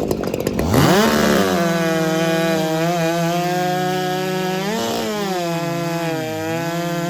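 Two-stroke racing chainsaw of up to 90cc revving up sharply about a second in, then running at high, steady full throttle. Its pitch dips briefly twice, about five and six seconds in.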